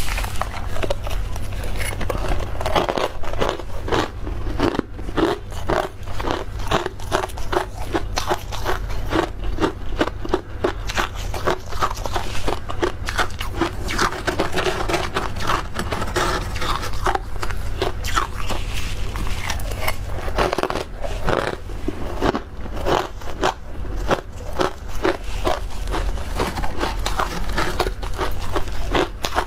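Soft, powdery freezer frost being bitten and chewed close to the microphone: a dense, continuous run of quick crunches and crackles.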